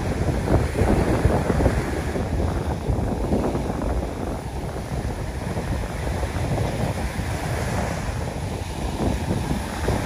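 Wind buffeting the microphone, with small sea waves washing up onto a sandy beach underneath.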